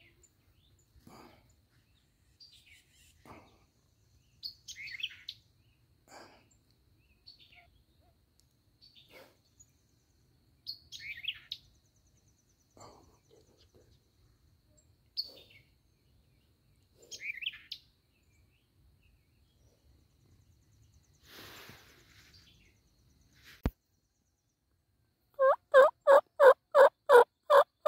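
Songbirds chirping now and then, a single sharp click, and then near the end a fast, even series of about eight loud turkey yelps, roughly three a second.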